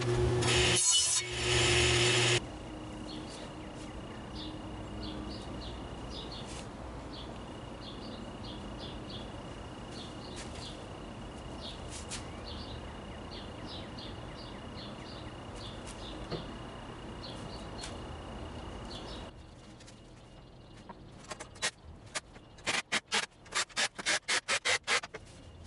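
A table saw ripping a 2x4 into a 1.5-inch strip, cutting off suddenly about two seconds in. Then a steady background hum, and near the end a quick run of about a dozen sharp clacks as a cordless nailer drives nails into a wooden cleat.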